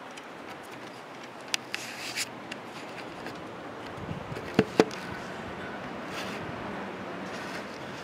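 Steady rushing of strong wind. A few sharp knocks from the camera being handled on the wooden deck railing come through it, the loudest two close together about halfway through.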